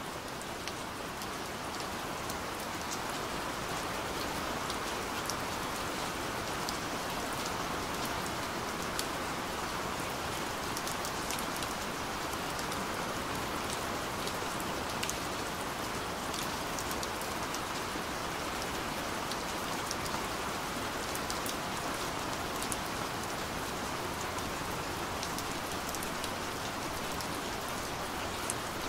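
Steady rain, a dense even hiss with scattered small drop ticks, swelling in over the first second or two.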